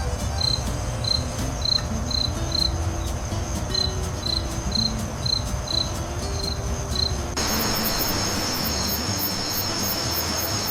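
Crickets chirping, a regular chirp about twice a second over a steady high insect trill, with a low rumble underneath. About seven seconds in, the insect chorus changes abruptly to a faster, higher pulsing.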